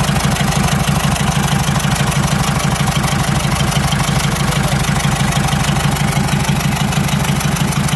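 Toyota 1KD-FTV four-cylinder turbodiesel idling steadily, a fast even pulse with no change in speed.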